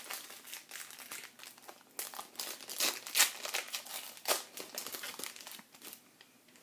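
Plastic wrapper of a 2013 Series 1 baseball card pack crinkling as it is opened by hand, in irregular crackles that die down near the end.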